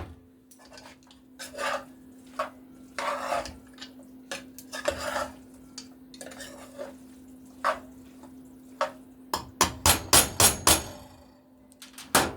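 Spoon stirring pasta salad in a bowl, a few short scraping strokes, then a quick run of sharp clicks and knocks about ten seconds in, over a steady low hum.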